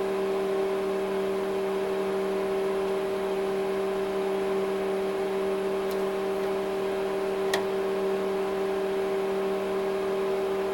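HP 54200A digital oscilloscope running on the bench with its covers off, giving a steady whirring hum with a few fixed tones. Two faint clicks come about six and seven and a half seconds in.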